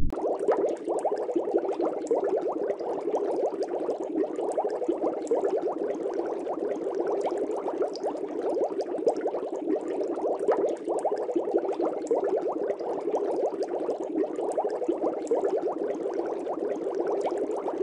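Steady, dense bubbling of water: a thick run of small pops and crackles with no pause.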